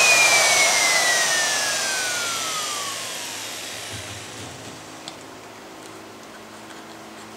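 Festool plunge router switched off after cutting a mortise and spinning down. Its whine falls steadily in pitch and fades out over about four seconds. A small click follows about five seconds in.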